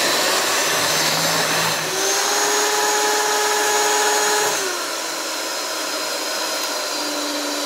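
Electric hand mixer (Cuisinart) running, its beaters whipping thickened instant pudding in a glass bowl. A steady motor whine that drops a little lower and quieter about four and a half seconds in.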